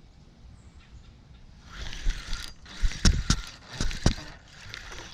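Clattering handling noise from rod, reel and a just-landed fish. It is quiet at first, then from about two seconds in comes an irregular run of sharp clicks and knocks with rustling, loudest a little past three seconds in.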